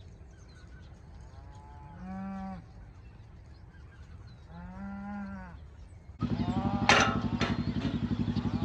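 Cattle mooing: two long, arching moos in the first six seconds. Then the sound jumps louder with a steady low rumble, a sharp knock, and another moo beginning near the end.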